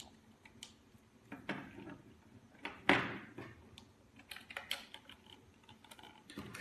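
Small plastic clicks and knocks as a 9V battery is fitted into the battery compartment of a handheld moisture meter, with one louder knock about three seconds in and a quick run of clicks a little later.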